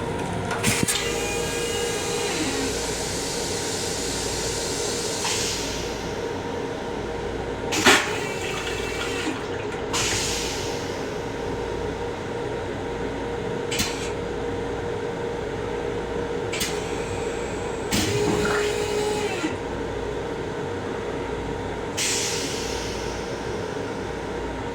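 Water rushing in the restroom plumbing of a Long Island Rail Road M7 car, starting about a second in and again near the end. Sharp knocks come through, with the train's steady rumble and hum underneath.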